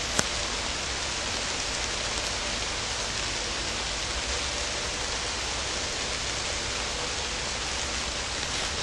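Light rain falling on the leaves of a tree canopy, a steady even hiss. A single short click just after the start.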